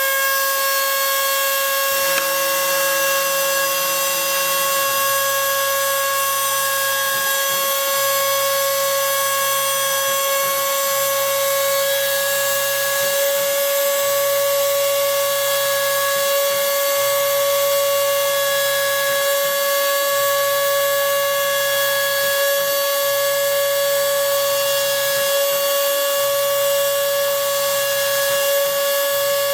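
Homemade CNC router milling a printed circuit board. The small spindle motor runs at speed with a steady, high whine. Beneath it the stepper motors buzz in runs of one to two seconds with short pauses as the axes move.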